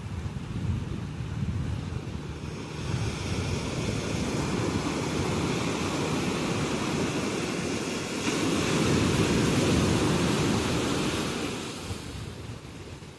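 Ocean surf washing onto a beach: the wash builds for a few seconds, a bigger wave breaks about eight seconds in, and its rush dies away near the end.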